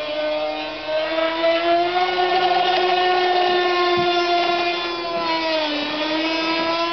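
Small two-stroke engine of an FSR-V radio-controlled racing boat running at high revs, a continuous high-pitched whine whose pitch sags briefly near the start and again about five and a half seconds in, then picks back up. The engine has carburetion problems.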